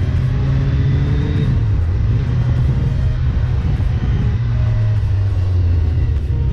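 Motorcycle engine running steadily while riding along at road speed, a constant low sound with no revving or gear changes.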